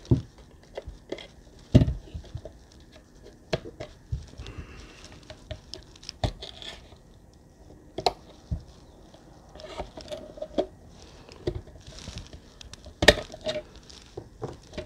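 Irregular clicks, taps and knocks of a Subaru engine control module's case being handled and opened on a workbench, with the loudest knocks right at the start, about two seconds in and about thirteen seconds in.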